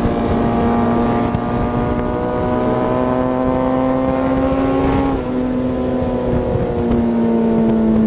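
Suzuki GSX-R1000 superbike's inline-four engine pulling hard at racing speed, recorded on the bike with wind rushing past. Its pitch climbs steadily, drops once at a gear change about five seconds in, then climbs again.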